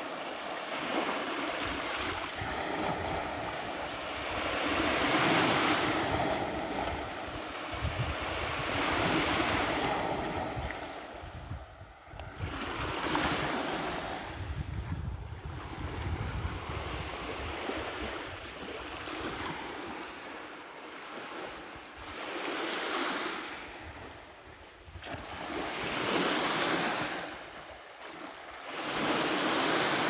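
Small waves of the Sea of Azov lapping onto a sandy beach, each wash swelling and falling away every few seconds.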